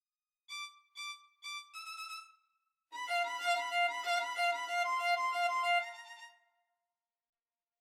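MIDI-rendered solo violin playing a birdsong-like phrase: three short repeated high notes about half a second apart, then a slightly higher longer note. After a short pause comes a fast passage of rapidly repeated two-note chords, lasting about three seconds.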